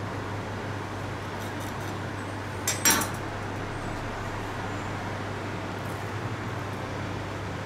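Steady fan hum with a light hiss. About three seconds in come two quick clinks of metal kitchenware, the second louder.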